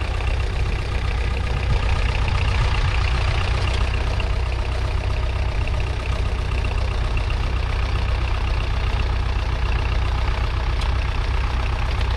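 1961 Massey Ferguson 35's 2.5-litre four-cylinder diesel engine running steadily with an even, unchanging note.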